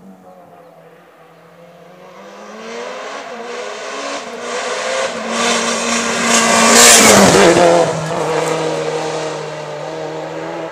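Hill-climb race car coming up the road, its engine growing steadily louder, passing close by about seven seconds in with a sudden drop in pitch, then fading as it climbs away.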